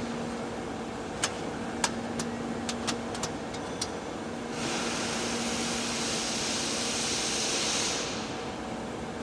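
TIG welding arc hissing for a few seconds, starting about four and a half seconds in and dying away near the end, over a faint steady hum. Before it comes a string of sharp clicks.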